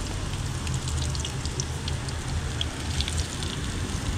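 Breaded catfish strips deep-frying in hot oil in a cast-iron skillet: a steady sizzle full of small crackles and pops, over a steady low rumble.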